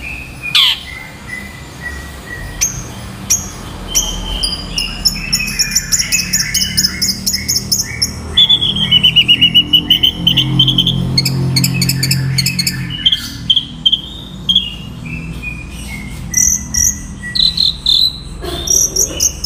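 Long-tailed shrike (cendet) singing a fast, dense string of short chattering notes and quick trills, with a few falling slurred calls, over a steady low hum.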